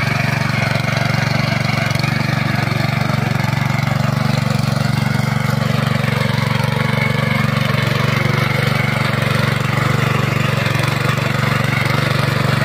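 Honda FQ650 power weeder's single-cylinder four-stroke petrol engine running at a steady speed under load while its rotary tines till soil. The engine note holds even and unbroken throughout.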